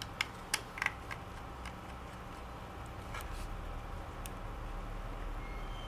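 Small sharp clicks and taps of laptop parts being handled by hand: a quick cluster of four or so in the first second, then a couple of isolated ticks later, over a low steady hum.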